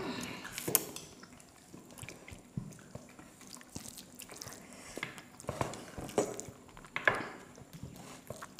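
Close-miked eating with the hands: wet chewing, lip smacks and fingers squishing curry-soaked rice, in a run of short irregular wet clicks. The loudest come just under a second in and again about seven seconds in.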